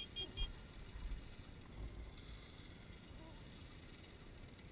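Low gusts of wind buffeting the microphone, with three short, high electronic beeps in quick succession right at the start.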